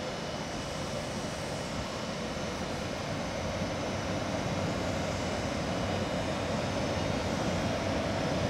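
Electric locomotive bringing a regional train slowly into a station, a steady hum and rumble that grows a little louder as it nears.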